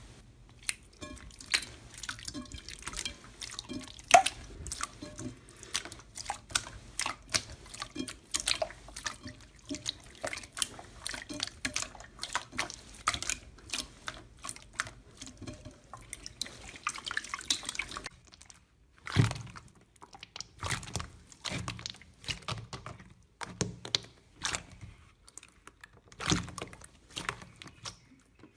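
Slime being worked: a dense run of wet clicks and pops, then about two-thirds of the way through, fewer, deeper squelching thuds.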